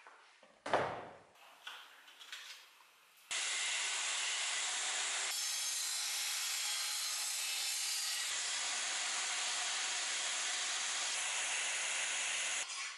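Belt grinder with an electric motor grinding a steel knife blank: abrasive belt on steel, a loud steady hiss that sets in a few seconds in. Before it come a sharp thump and a few short knocks.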